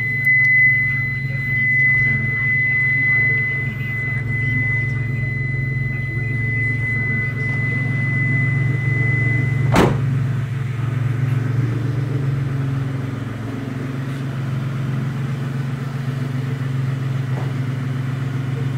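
A 1995 Mitsubishi 3000GT's non-turbo V6 idling steadily through headers and a straight-pipe exhaust. Over it a steady high-pitched tone runs for the first ten seconds and stops at a single sharp knock.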